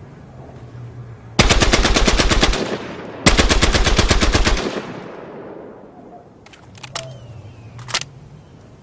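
Lewis gun firing two rapid bursts of about a second each, the second starting just after the echo of the first fades. A fading echo follows each burst, and two single sharp clicks come near the end.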